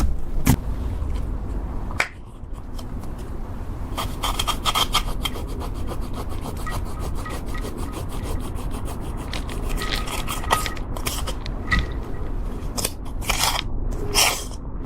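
Slime being worked by hand, rubbing and then crackling with a dense run of small sharp clicks from about four seconds in.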